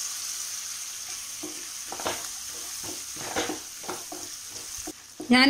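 Peanuts, chana dal and onion sizzling in oil in a non-stick pan while being stirred with a wooden spatula: a steady sizzle with scattered scrapes and taps of the spatula against the pan.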